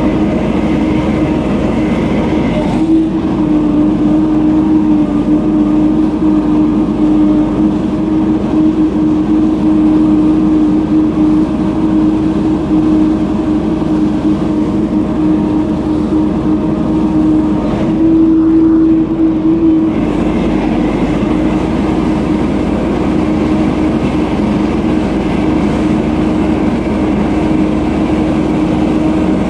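Gas-engine leaf blower running steadily at high throttle, its engine note shifting slightly in pitch a couple of times.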